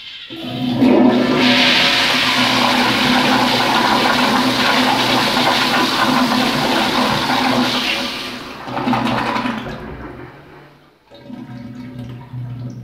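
Vintage 1970s Kohler floor-mount toilet flushing: a loud rush of water swirling down the bowl for about eight seconds, tapering off. Near the end the water runs more quietly as the bowl refills.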